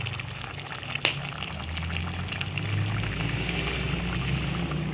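Chicken afritada stew of chicken and potatoes in tomato sauce simmering in a pot, a steady crackle of small bubbles, with one sharp click about a second in.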